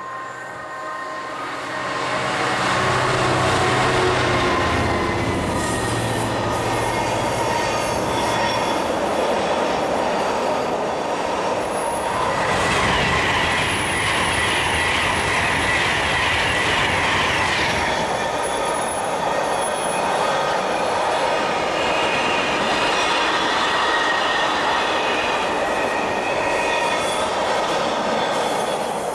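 British Rail Class 66 diesel locomotive's EMD two-stroke engine at full power, its note swelling as it approaches hauling a long intermodal freight. About twelve seconds in, a Class 390 Pendolino electric train rushes past on the nearer track, and the container wagons then roll by with high wheel squeals.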